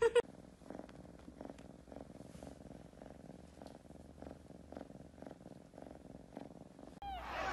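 A young dark brown kitten purring softly in a steady rhythm while it is stroked. A louder, different sound cuts in near the end.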